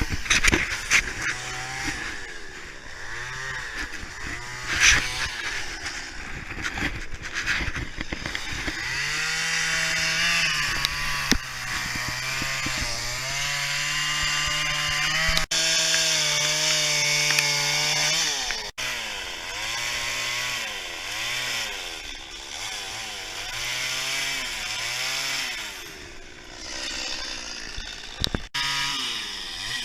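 Chainsaw cutting into wood during carving: the engine is throttled up and down again and again, its pitch rising and falling, with a few abrupt breaks.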